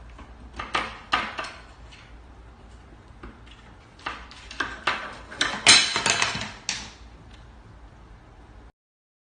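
A wooden spoon rattling and knocking against the handles of a wooden kitchen cabinet door as a cat paws at it, trying to pull it free. There are a few knocks near the start, then a denser run of clatters that is loudest about six seconds in.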